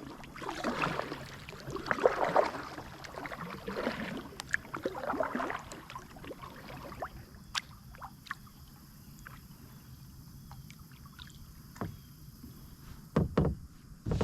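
Kayak paddle strokes swishing and splashing in the water, a stroke every second or so, for the first half. The strokes then stop, leaving scattered light clicks and knocks, with a couple of low thumps near the end.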